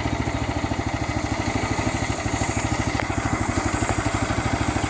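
Small engine idling steadily, with an even, rapid pulse.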